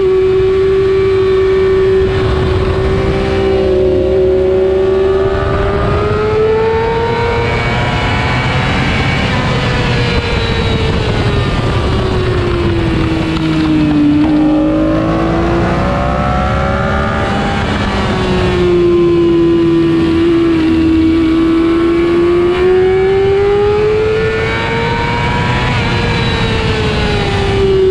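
Motorcycle engine running hard at high revs around a racetrack, its pitch rising and falling with throttle through the corners and dipping to its lowest near the middle, over a steady rush of wind and road noise.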